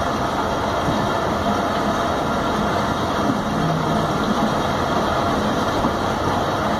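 Passenger train running along the track, heard from alongside a carriage: a steady rumble of wheels on rails and rushing air.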